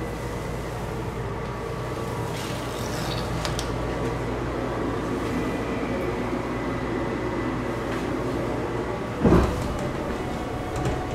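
Steady low rumble and hum inside a Haruka limited-express train carriage, with a single loud clunk near the end.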